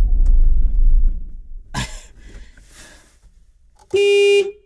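Parked van's horn honks once, a short blast of about half a second near the end, sounding by itself; the owner guesses it could be an electrical short. A low rumble fades out over the first second, before the honk.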